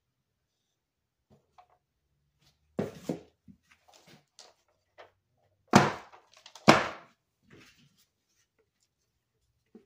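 Wooden soap loaf mold knocked down onto the table: two softer knocks about three seconds in, then two loud, sharp thunks about a second apart.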